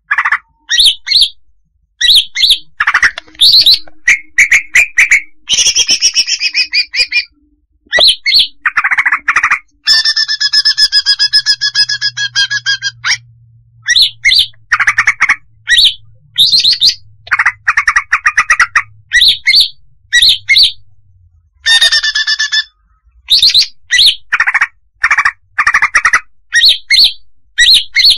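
Female greater green leafbird (cucak hijau) calling: a loud, rapid run of short sharp chirps and whistled notes. A longer buzzy call comes about ten seconds in, and a shorter one comes near twenty-two seconds.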